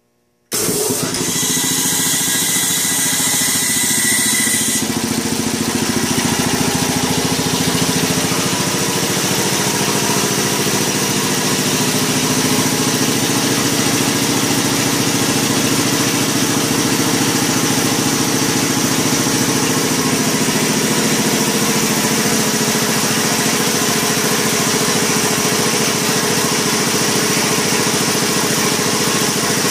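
Quincy 325 belt-driven air compressor, driven by an electric motor, comes on suddenly about half a second in and runs steadily and loudly, with a high hiss over the first few seconds.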